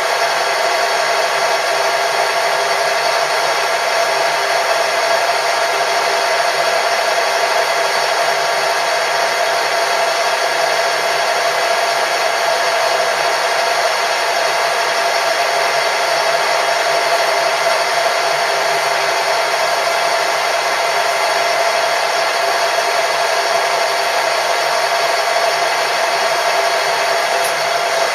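Machine tool running steadily: a constant motor whine with several steady tones over a hiss.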